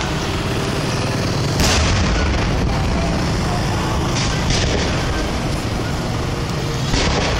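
Aerial fireworks going off: a continuous noisy din of shells, with a sharp bang about one and a half seconds in, a smaller one about four and a half seconds in, and another near the end.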